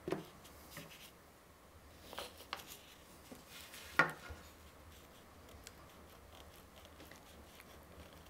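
A few light clicks and taps as a wooden saw handle is worked off a steel backsaw blade on a bench, the sharpest tap about four seconds in, then quiet handling.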